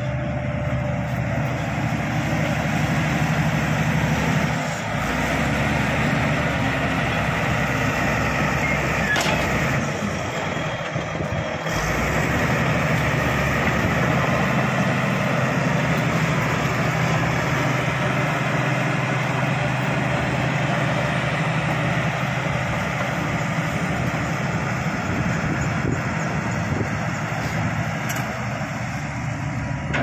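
Shantui SD16 crawler bulldozer at work, its diesel engine running steadily under load as it pushes earth. A few brief sharp clicks come through, about a third of the way in and again near the end.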